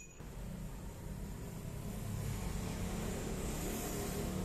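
A manual lathe running steadily, a low hum under a noisy whirr that grows slightly louder.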